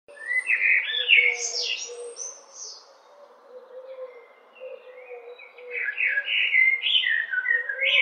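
Eurasian blackbird singing: two phrases of varied whistled notes, one at the start and another beginning a little past halfway, with a quieter pause of a couple of seconds between them.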